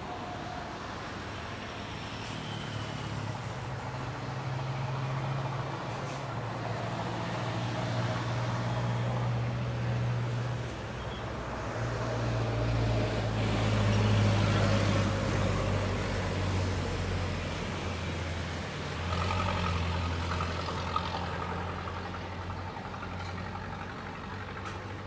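Low engine rumble with a faint falling whine, swelling to its loudest about halfway through, easing, then swelling again a few seconds later.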